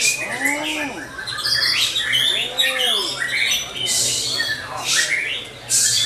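Many caged songbirds singing over one another in a dense chorus of quick chirps and trills, with two lower rising-then-falling calls in the first half.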